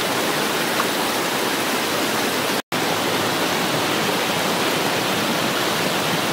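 Steady rushing of a shallow flowing stream. The sound cuts out for an instant a little under three seconds in, then carries on unchanged.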